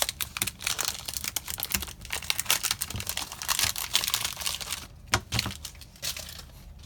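Foil wrappers of Magic: The Gathering Core 2019 booster packs crinkling and tearing as they are opened by hand: dense, irregular crackling, with brief lulls about five and six seconds in.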